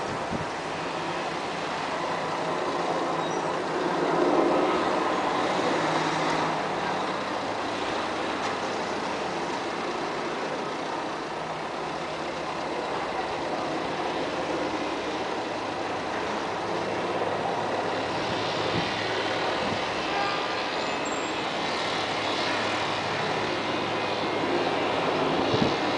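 Distant aircraft engine droning steadily overhead, mixed with wind noise on the microphone.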